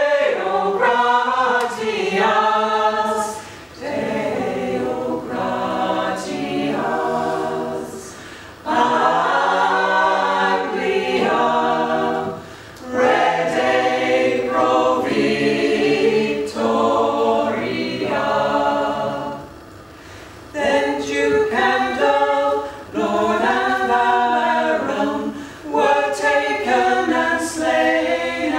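Small mixed choir of men's and women's voices singing unaccompanied, in phrases broken by short pauses for breath.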